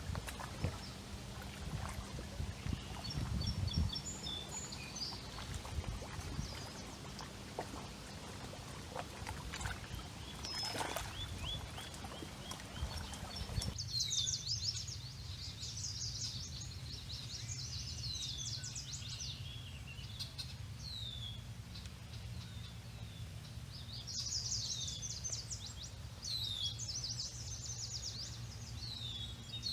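Birds singing and calling over the steady wash of a river. About halfway through, the water noise drops away and the birdsong turns dense, with many quick high notes and repeated falling whistles.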